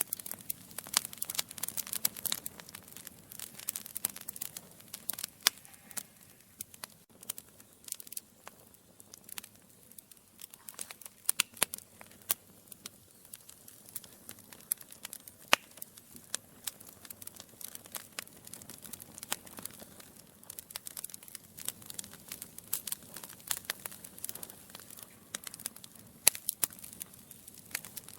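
Wood logs burning in a fireplace, crackling with many irregular sharp pops and snaps over a soft hiss.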